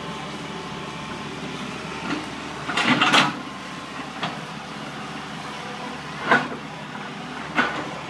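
Hitachi EX120 tracked excavator's diesel engine running steadily, broken by several sharp knocks, the loudest a short cluster about three seconds in.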